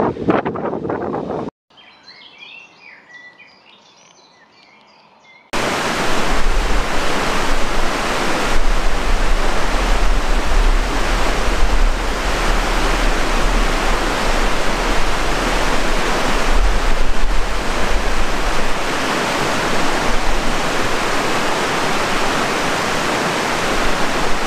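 Loud, steady rush of water with a deep rumble underneath, starting on a hard cut about five seconds in. Before it come a few seconds of faint, high chirping.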